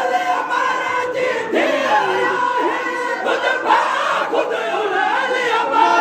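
A large crowd of men chanting a noha, a mourning lament, together, with many loud voices overlapping and shouting over one another.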